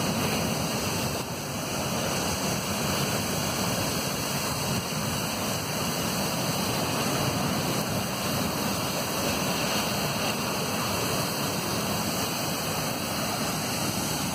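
Fire hoses spraying water fog onto a burning hydrocarbon pool fire: a steady rushing of water spray that runs on without a break.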